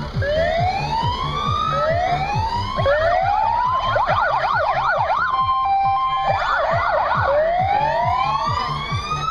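Electronic siren of a fire brigade van cycling through its tones. It gives repeated rising sweeps, then a fast warbling yelp, a brief two-tone hi-lo about halfway through, more yelp, and rising sweeps again. A regular low beat of background music runs underneath.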